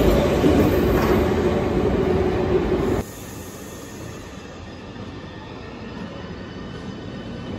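Berlin S-Bahn Class 481/482 electric train running alongside the platform, loud with a steady hum over the rolling noise; it cuts off abruptly about three seconds in. What follows is the quieter, slowly growing sound of another S-Bahn train pulling into a platform.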